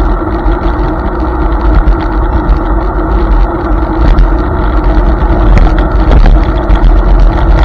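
Riding noise from a Hiboy S2 Pro electric scooter under way: wind rumbling on the mounted camera's microphone, over a steady hum from the scooter running along the pavement.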